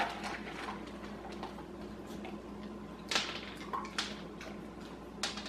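A dog eating dry kibble from a metal bowl: scattered crunches and clicks of kibble against the bowl, with sharper clicks about three and four seconds in and again near the end. A steady low hum runs underneath.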